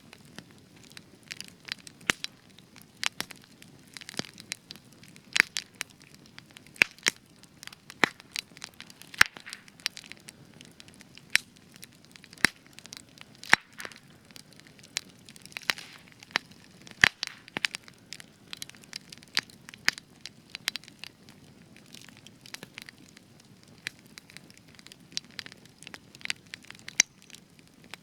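Spruce-wood campfire burning, with frequent sharp, irregular crackles and pops over a low steady rush of flame; spruce is known for an extra crackly burn.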